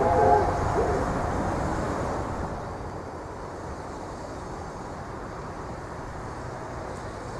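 The steam whistle of No. 3 "Southern Maid", a one-third-scale 15-inch gauge 4-6-2 Pacific, cuts off just after the start. A steady, quieter rumble and hiss follows as the locomotive approaches slowly.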